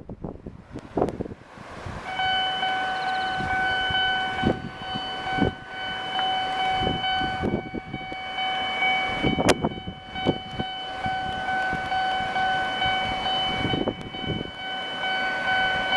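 Japanese railway level-crossing warning bell starting about two seconds in and ringing steadily with a distinctive multi-tone chime, sounding as a train approaches. Low gusts of wind on the microphone thump underneath it, the strongest near the middle.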